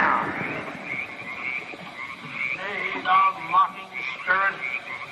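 A chorus of frogs croaking steadily, with a few louder individual calls about three and four seconds in.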